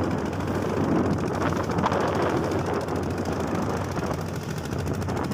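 Small boat's engine running at a steady speed with a rapid, even chugging hum, over a wash of wind and water noise.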